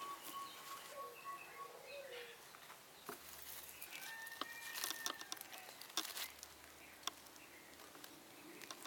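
Faint crinkles and clicks of plastic grafting tape being stretched and wound around a jujube graft, with a few thin bird calls in the background.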